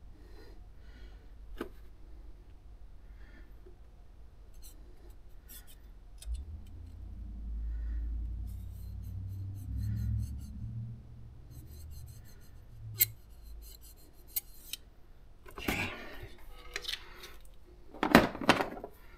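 Light metal clicks and scrapes of a small wrench being worked on the valve adjuster of a GY6-type scooter engine. A low rumble comes in the middle, and two louder scraping bursts come near the end.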